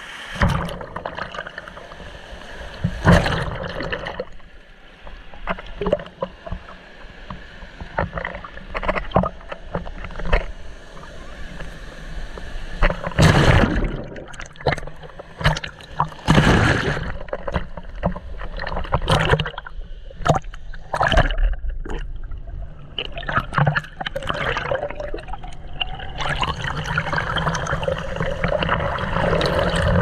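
Waves breaking and washing over a camera at the waterline: irregular loud splashes and sloshing surges as each wave rushes in and swirls around it, over a steady wash of surf.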